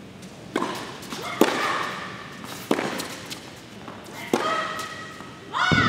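Tennis rally: rackets strike the ball four times with sharp pops, spaced about one to one and a half seconds apart. Applause breaks out near the end as the point finishes.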